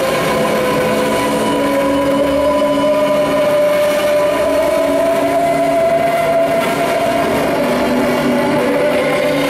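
Loud live noise music from distorted electric bass guitar and synthesizer: a dense, harsh wash with sustained droning tones, one slowly rising and then sinking back, over lower held notes that come and go.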